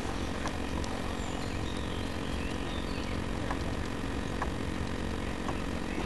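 Steady rushing noise with a low rumble, from wind and water on a radio-controlled sailboat's onboard camera microphone, with a few faint clicks.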